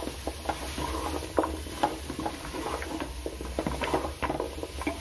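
Spatula stirring and scraping chopped vegetables around an aluminium pot as they cook in spiced oil, with irregular scrapes and taps against the metal.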